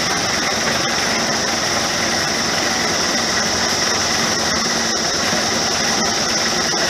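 Engine of a Chance Rides miniature train running steadily as the train rolls slowly along the track, heard from the car right behind the locomotive. There is a constant mechanical noise with a steady high hiss over it.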